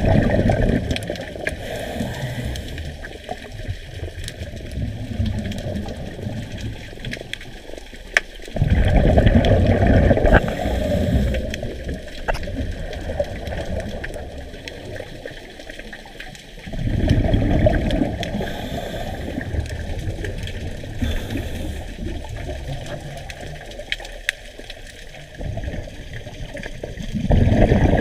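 Scuba diver's exhaled bubbles from the regulator, heard underwater: a rush of bubbling about every eight to nine seconds, each lasting a couple of seconds, with quieter water noise between breaths.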